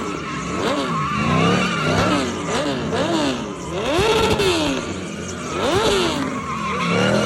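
Mercedes-Benz W124 E500's swapped-in M113 V8 revving up and down in quick swings, about one a second, with tyres squealing at times.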